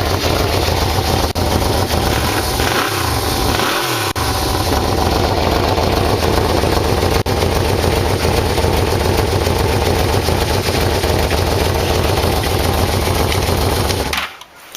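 Yamaha VMax V4 engine running through its stock mufflers, their cover plates drilled with extra holes to make it louder. Its pitch shifts briefly twice about three and four seconds in, and it cuts off suddenly near the end.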